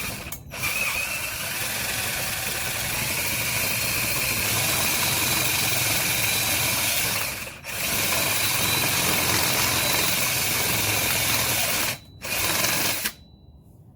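Electric power drill running at full speed in long steady runs, with a brief pause about seven and a half seconds in and another near the end before a short last burst.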